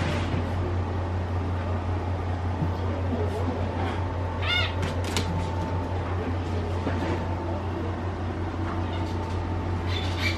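Pomeranian giving a short whine about four and a half seconds in, and a fainter one near the end, over a steady low hum.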